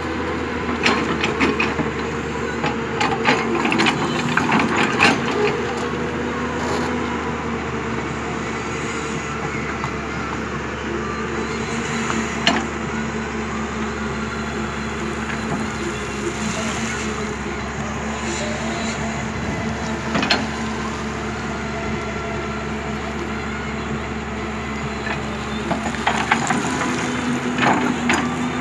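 JCB tracked excavator's diesel engine running steadily under hydraulic load while the steel bucket scrapes and knocks through gravelly spoil. Stones clatter, busiest in the first few seconds, then in single knocks. The engine note steps up slightly near the end.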